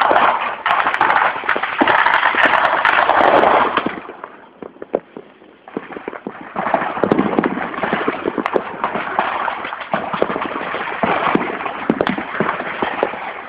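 Many firecrackers and fireworks going off at once, a dense crackle of overlapping bangs and pops. It thins out for a couple of seconds about four seconds in, then builds up again.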